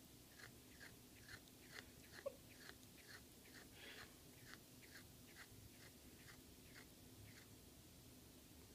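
Faint soft ticks from a cat close to the microphone, about two a second, fading out near the end, over a low steady electrical hum.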